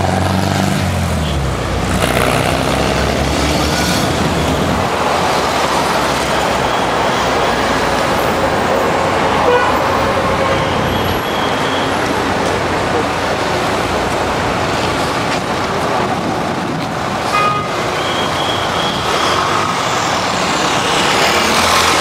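Steady street traffic noise from passing vehicles, with a few brief horn toots around the middle and near the end.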